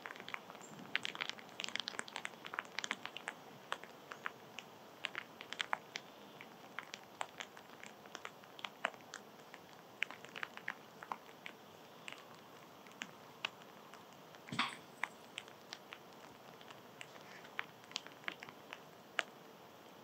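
A small animal eating seed close to the microphone: irregular sharp clicks and crunches, at times several a second, with one louder crack late on.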